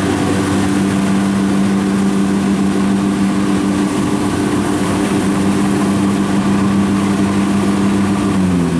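Kubota combine harvester's diesel engine running steadily while harvesting rice. Its pitch drops slightly near the end.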